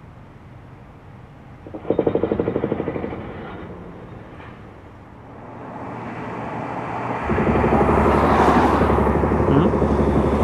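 Mantis demolition machine's hydraulic hammer pounding the concrete top of the smoke stack: a fast, even rattle of about ten blows a second starting about two seconds in, lasting a second and a half, then echoing away. From about seven seconds in a louder steady low rumble takes over.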